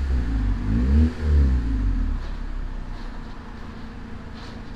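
Honda CRX engine revved up and back down in the first couple of seconds, then settling to a steady idle. The warm engine picks up without hesitation and idles evenly after a throttle cable adjustment.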